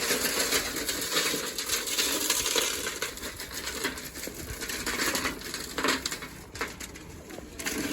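Cattle feed nuts poured out and rattling into a feed bowl, a dense clatter of small hard pellets that thins out near the end.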